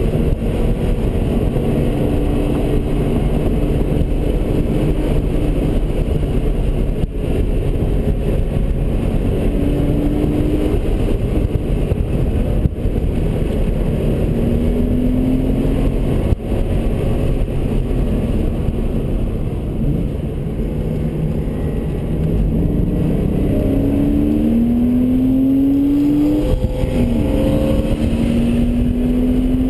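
A car engine heard from inside the cabin at track speed, its pitch climbing and dropping back several times as it accelerates through the gears, over steady wind and tyre noise.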